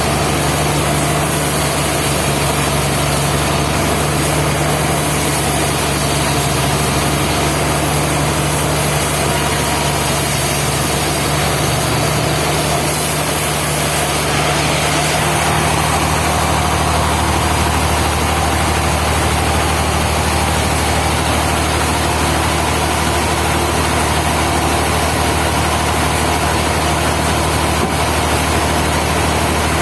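Sawmill machinery running with a steady, loud engine-like drone; its tone shifts lower about halfway through.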